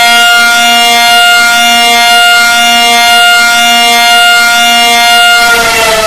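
Emergency-alert siren tone, boosted very loud: a steady, many-toned wail is held, then begins sliding down in pitch about five and a half seconds in.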